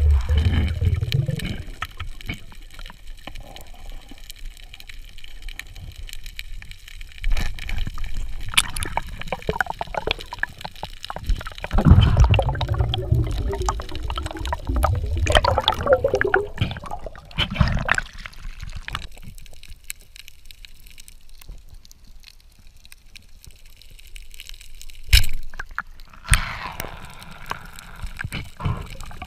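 Muffled underwater sound: water moving and bubbling around the camera, with a few sharp clicks and knocks, one standing out about 25 seconds in.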